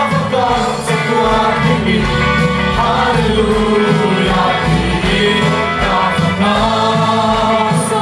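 Christian worship song: voices singing together over an amplified band, with bass and drums keeping a steady beat.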